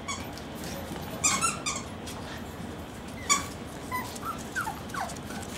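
Small dogs whimpering and whining in a few short, high-pitched calls, the last ones brief and falling in pitch.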